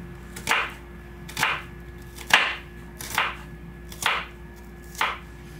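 Kitchen knife slicing a red onion into thin julienne strips on a wooden cutting board: six strokes, about one a second, each ending in a knock of the blade on the board.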